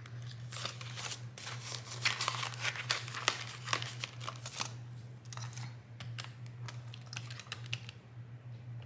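Crinkling and rustling of a clear plastic binder pocket and paper banknotes as cash is handled and tucked into a budget binder envelope: a run of crackles and rustles, busiest in the middle, over a steady low hum.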